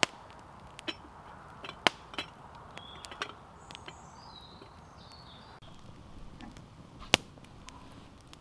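Sharp cracks and pops of wood, about six spread irregularly, the loudest about two seconds in and near the end, typical of a campfire being rekindled from its embers. A bird chirps a few short high notes in the middle.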